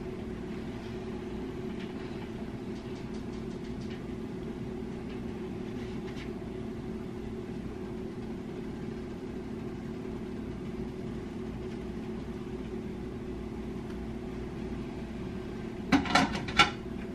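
Steady low hum of a running kitchen appliance. Near the end comes a short clatter of dishes as a bowl is taken from the rack.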